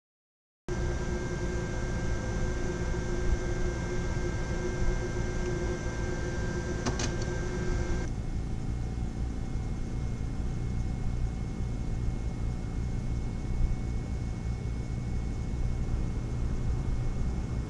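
Steady electrical hum and hiss, with a set of whining tones that cut off suddenly about eight seconds in and a single click shortly before.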